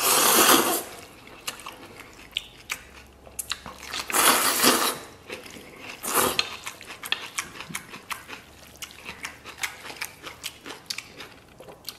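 A man slurping noodles in loud pulls: one at the start, one about four seconds in and a shorter one at about six seconds. In between he chews close to the microphone, making many short clicks.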